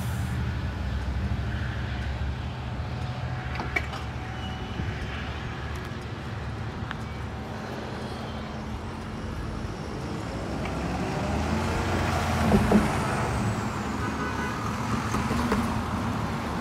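A heavy vehicle's engine running with a steady low drone. It eases off mid-way, builds up again, and has two sharp knocks about three quarters of the way in.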